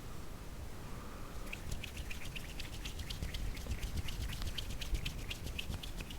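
A quick run of light clicks or taps, about six a second, starting about a second and a half in, over a low rumble.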